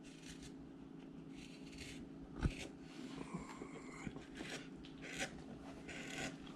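A hand carving tool cutting into wood: a series of short, quiet scraping and slicing strokes, with one sharper knock about two and a half seconds in.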